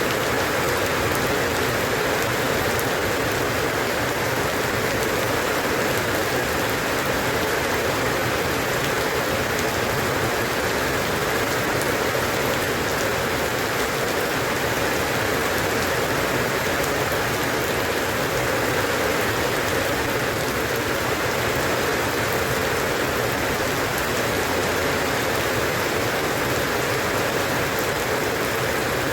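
Steady, even rain falling on a surface, a continuous patter without pauses or thunder.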